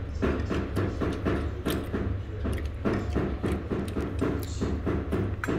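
Rapid, evenly spaced knocking, about four knocks a second, over a steady low hum.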